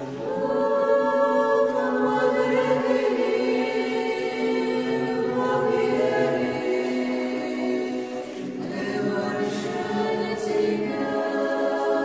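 Choir singing Orthodox liturgical chant a cappella, in long held chords that change pitch every few seconds.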